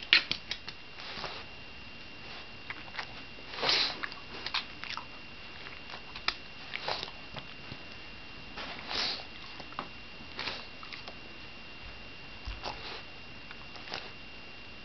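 A Shiba Inu sniffing in short bursts, with scattered sharp clicks of its claws on a hardwood floor.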